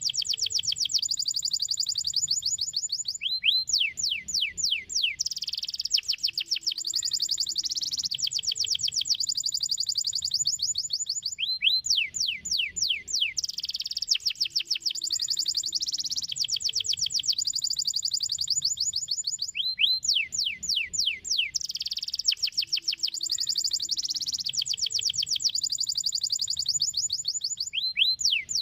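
Domestic canary singing: long, rapid high trills alternating with runs of quick falling whistled notes, the phrase coming round about every 8 seconds.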